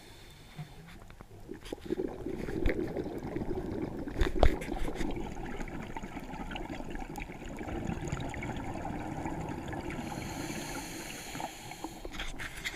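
Scuba regulator breathing heard underwater: bubbles gurgling and crackling from about two seconds in, with a higher hiss near the end. A single sharp knock comes a little after four seconds in.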